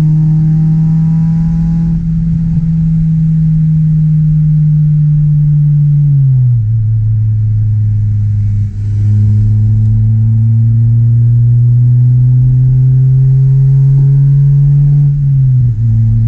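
Honda CRX Del Sol's 1.6-litre D16Y8 SOHC VTEC four-cylinder engine and exhaust running under way at steady revs. About six seconds in the revs drop, then climb slowly, and they drop again near the end.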